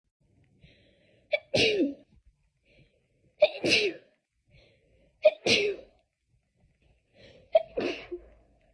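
A person in a sneezing fit: four sneezes about two seconds apart, each a short sharp catch just before the main burst.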